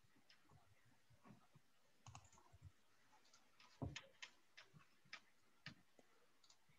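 Faint, irregular clicks of typing on a computer keyboard, coming over a video call, with the loudest click about four seconds in.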